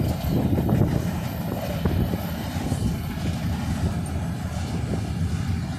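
Freight train of hopper cars rolling past, a steady low rumble of steel wheels on the rails, with a few clicks in the first second.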